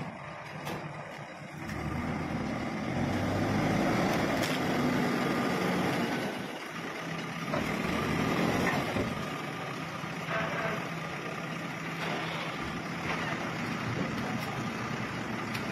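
Heavy diesel engine of a backhoe loader working. It grows louder about two seconds in and stays up for several seconds as the bucket lifts debris into a dump truck, then settles to a steadier, lower run.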